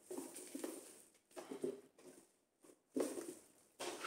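Clear plastic food storage containers being handled and pulled apart from one another, giving a series of short, light plastic scrapes and rustles.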